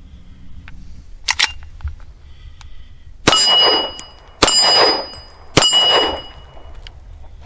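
Three .45 ACP shots from a Hi-Point pistol, about a second apart, each followed by the ring of the steel plate target being hit. A short double click comes about a second in.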